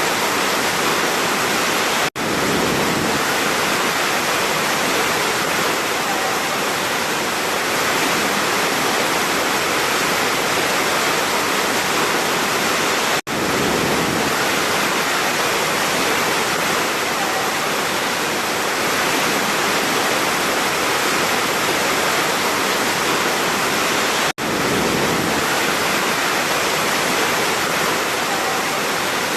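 Large waterfall rushing: a dense, steady wash of falling water. It cuts out very briefly three times, about eleven seconds apart.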